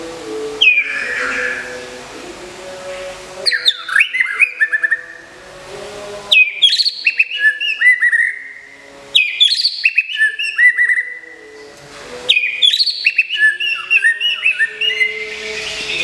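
A caged white-rumped shama singing: four bursts of rapid, varied whistled phrases, with quick sliding notes, separated by short pauses.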